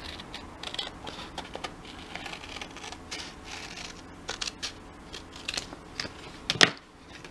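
Scissors cutting through wallpaper: a run of irregular snips with the paper rustling, and one louder click near the end.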